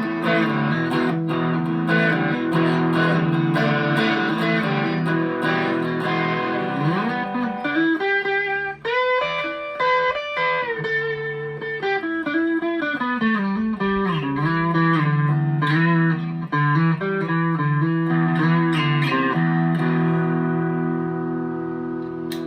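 Chapman ML3 Standard P90 electric guitar on the middle pickup setting (both P90s), played through a Behringer overdrive pedal into a Vox AV15 amp. It starts with ringing overdriven chords, slides up about seven seconds in into a single-note lead run that climbs and then falls, and goes back to chords for the last few seconds.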